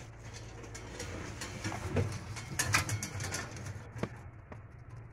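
Steel oil drum being lifted and handled: scattered knocks and scrapes over a low pulsing rumble, the loudest a cluster of sharp clatters nearly three seconds in.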